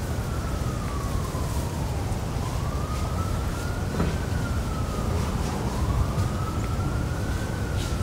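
An emergency-vehicle siren wailing, its pitch rising and falling slowly, about one cycle every three seconds, over a steady low rumble.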